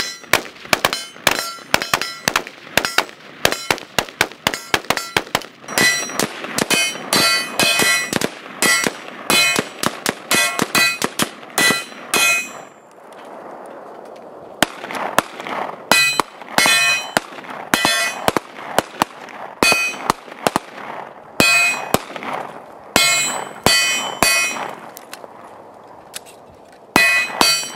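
Rapid string of gunshots from an AR-15 rifle and a pistol in a rifle-to-pistol transition drill, many of them followed by the ringing clang of hit steel targets. There is a pause of about two seconds near the middle.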